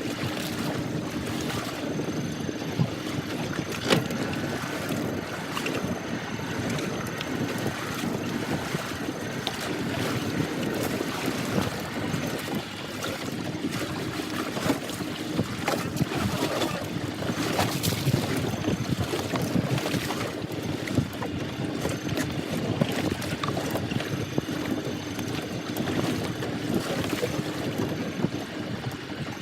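Wind buffeting the microphone and water lapping around a fishing boat, over a faint steady hum, with a few sharp knocks.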